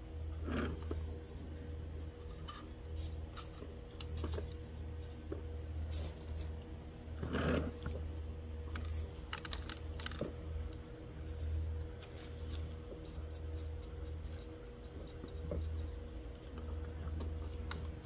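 Small pebbles spooned from a metal spoon onto potting soil as a top dressing, clicking and rattling in short scattered bursts, over a steady low hum.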